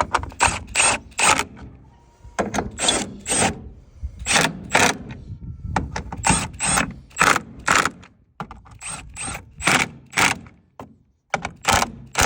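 Air filter housing on a Nissan Primastar van being fastened back together: a run of short, sharp mechanical clicks and clacks in quick groups of two or three.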